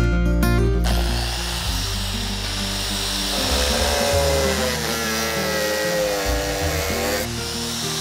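Handheld angle grinder with a cutting disc starting up about a second in and cutting into a bamboo pole. Its whine sags in pitch and climbs again as the disc bites. Guitar background music plays underneath.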